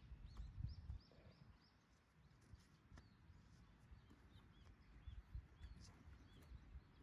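Faint outdoor ambience: small birds chirping, short arched notes repeating every half second or so, over a low rumble that swells in the first second.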